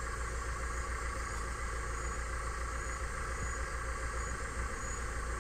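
Farm tractor engine idling steadily, a low even hum.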